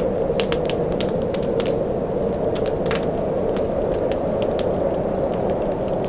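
Wood fire crackling in a fireplace: irregular sharp pops and snaps, several a second, over a steady low rushing bed.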